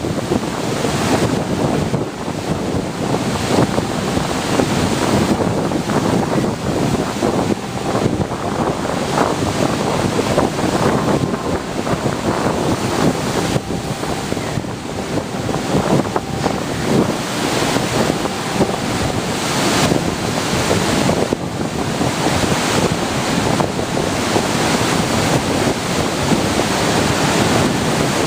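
Pacific Ocean surf washing in and out, mixed with heavy wind buffeting the microphone in a steady, rough rush of noise.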